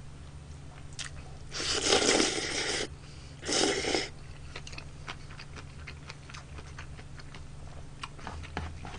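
A person slurps chewy jjolmyeon noodles in two long, loud pulls, the first about a second and a half in and a shorter one near four seconds, then chews them with small wet clicks.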